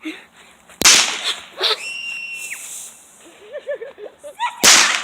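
Two sharp firework bangs about four seconds apart, the first a little under a second in and the second near the end, with faint voices between them.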